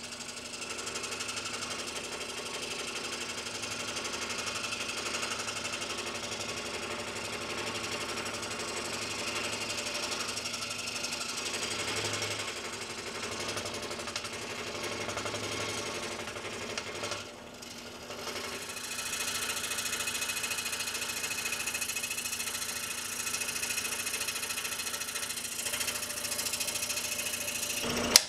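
Scroll saw running steadily, its blade cutting a small wooden block. It dips briefly about two-thirds of the way through, and there is a sharp click near the end.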